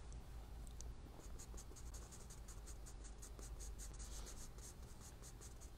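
Charcoal pencil scratching on sketchbook paper in quick, short, faint shading strokes.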